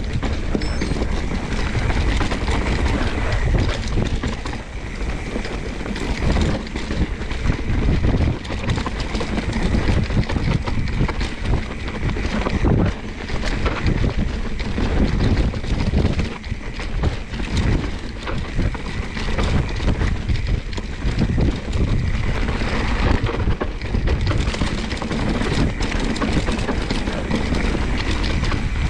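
Mountain bike descending a rough technical trail at speed: wind rumbling on the camera microphone, with frequent knocks and rattles from the bike over bumps.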